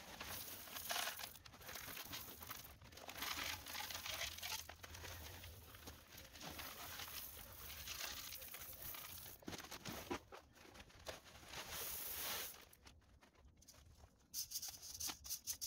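Small pea gravel pouring from a plastic bag, the pebbles pattering and rattling onto gravel while the bag crinkles. Near the end, a few scrapes and clicks as a rake is drawn through the gravel.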